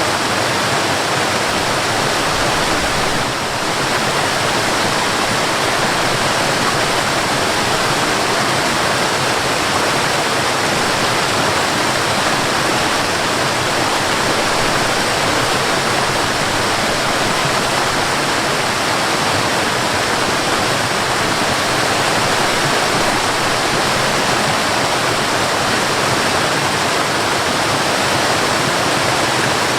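Mountain waterfall: water pouring and splashing in a steady, dense rush. It dips slightly in loudness for a moment about three seconds in.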